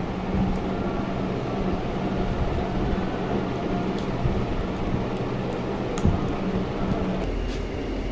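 Steady mechanical hum with a low droning tone that cuts out about seven seconds in, with a few soft clicks over it.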